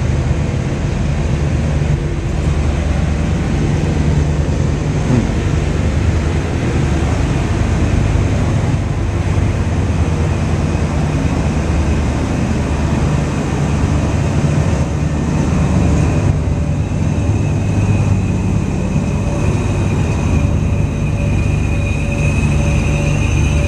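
A ferry's engines running steadily under way, a loud, continuous low drone.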